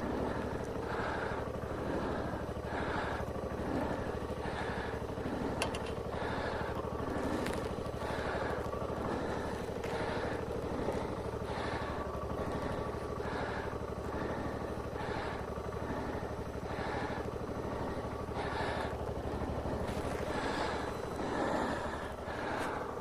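Car engine and road noise heard from inside the cabin while driving, a steady low hum with a soft regular pulse about once a second.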